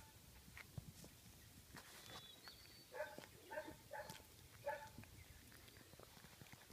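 Goldendoodle puppies giving four faint, short yips in quick succession about halfway through, roughly half a second apart, with a few soft clicks and scuffles around them.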